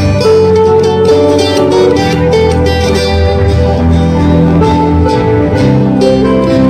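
Live acoustic band playing: two acoustic guitars strummed over an electric bass guitar, steady and loud.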